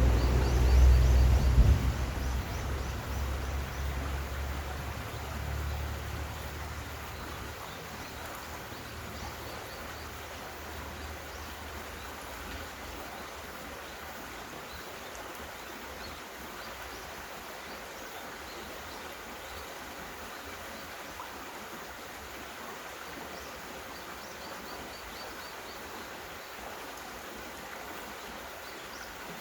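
Thunder rumbling low and fading away over about six seconds, over the steady rush of a mountain stream.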